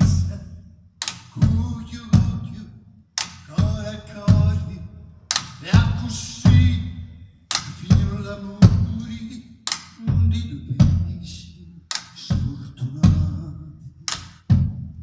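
Solo drum playing on a large floor drum: heavy strokes at an uneven pace, about one a second, each a deep thump with a sharp crack that rings out and fades before the next.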